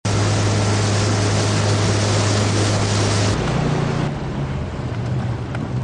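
Tow motorboat's engine running steadily under heavy wind and water rush. About three seconds in, the engine note shifts higher and the rushing noise falls away.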